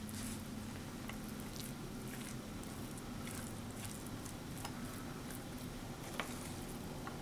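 Wooden spoon scraping thick, sticky cookie-dough-like batter out of a metal mixing bowl into a glass baking dish: faint, scattered soft scrapes and squishes, with one sharper tap about six seconds in.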